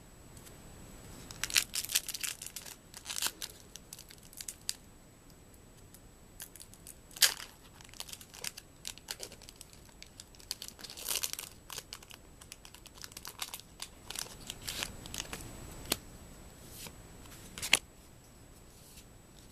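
Foil Magic: The Gathering booster pack wrapper being torn open and crinkled, in irregular bursts of crackling with short pauses between them.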